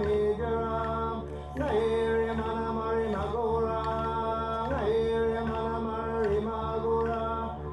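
Chanted singing in long held notes, each starting with an upward swoop, about one every second and a half, over a steady low drone.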